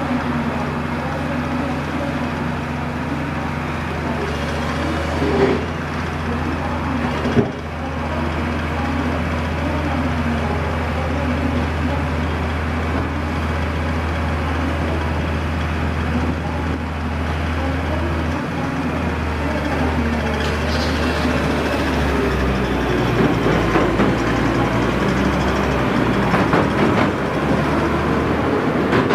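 Diesel power unit of a track-laying gantry crane for concrete railway sleepers, running with a steady low hum. A single knock comes about seven seconds in, and the hum changes and turns uneven a little past the middle.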